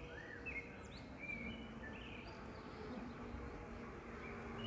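Faint street ambience with small birds chirping: a string of short, quick up-and-down whistled notes, over a faint low steady hum.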